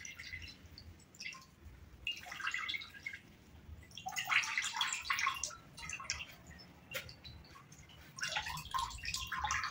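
Apple juice squeezed from mashed apples through a cheesecloth, trickling and splashing into a glass bowl in uneven spurts with short pauses.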